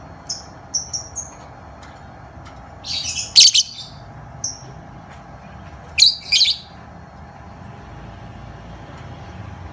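Lovebird calling: a few short high chirps, then two loud, harsh calls about three and six seconds in, with a single chirp between them.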